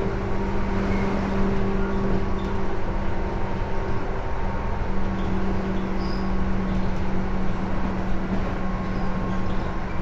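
Tobu 10030 series electric train running at a steady pace, heard from inside the car: a steady rumble of wheels on rail with a steady low hum.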